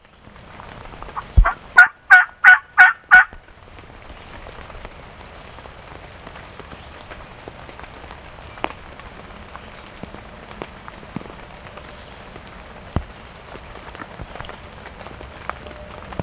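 A series of six loud turkey yelps, evenly spaced about a third of a second apart, starting just after a low thump about a second and a half in. Steady rain hisses throughout, with a few scattered drip-like clicks.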